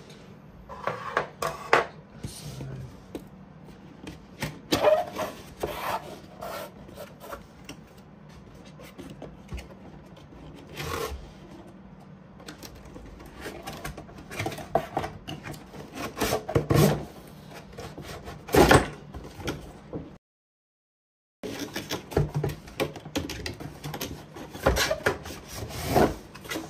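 Cardboard shipping box being cut open with a steak knife and unpacked: irregular scraping, rubbing and rustling of cardboard and packing, with scattered knocks. The sharpest knock comes just before the sound cuts out completely for about a second, about twenty seconds in.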